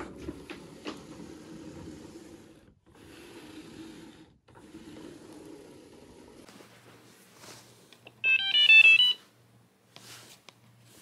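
iRobot Braava robot floor mop playing its short electronic melody, a quick run of high beeping notes lasting about a second, about eight seconds in. Before it there is several seconds of low rumbling noise with two short breaks.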